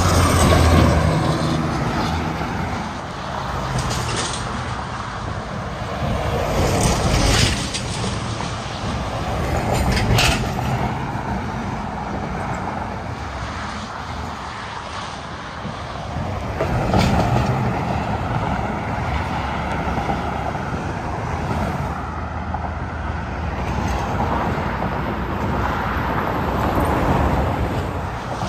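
Highway traffic, with semi-trucks and cars passing one after another at speed. Tyre and engine noise swells and fades with each pass, and a truck's low engine drone is loudest in the first couple of seconds.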